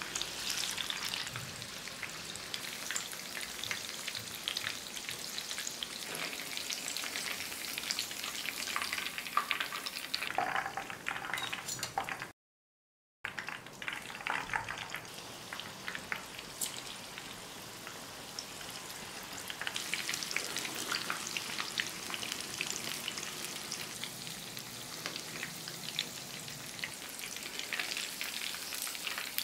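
Marinated chicken pieces deep-frying in hot oil: a steady crackling sizzle full of small pops. The sound cuts out for a moment near the middle, then the sizzling resumes and gets stronger from about two-thirds through as more pieces are lowered into the oil.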